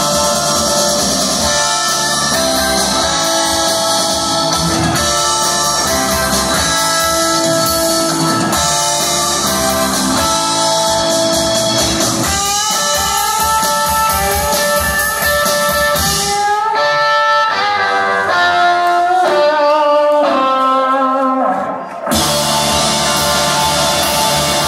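Live blues-rock band, with electric guitars, bass and drums, playing an instrumental passage. About two-thirds of the way through, the drums and bass drop out for a few seconds, leaving a lone line of held high notes that step up and down. Then the full band comes back in.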